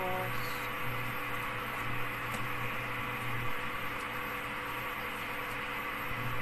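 Steady hum and hiss at the stove as a pan of water heats on the hob, just starting to boil. A low hum in it drops away about halfway through.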